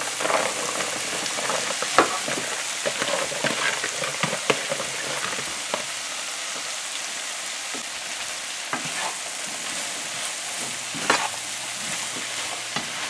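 Chopped okra sizzling in hot oil with sautéing onion, tomato and scallion in a nonstick frying pan as it is tipped in and stirred with a silicone spoon: a steady frying hiss with scattered sharp clicks, busier in the first half.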